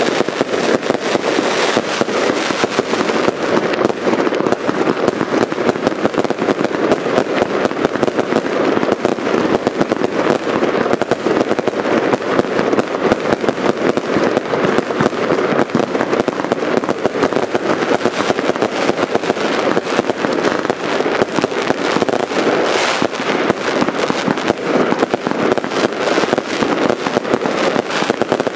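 Aerial fireworks firing continuously: a dense, unbroken stream of bangs and crackles with no pause.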